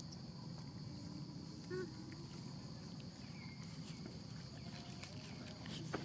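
Faint outdoor ambience: a steady high insect drone, with a brief low call about two seconds in and a few short high falling chirps a little past the middle.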